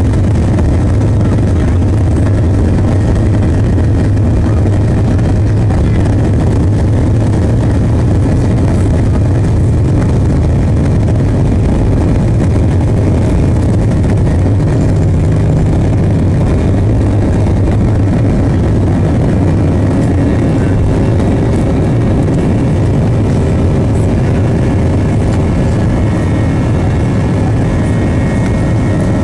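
Boeing 737 jet engines at takeoff thrust, heard inside the cabin as a loud, steady low rumble during the takeoff roll and lift-off.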